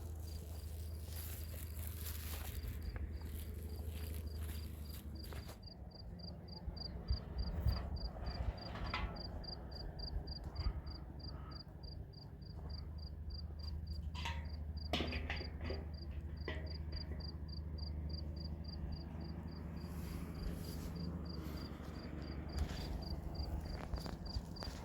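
An insect, cricket-like, chirping in a rapid, even train of high-pitched pulses over a steady low rumble. A few soft knocks come between about 7 and 16 seconds in.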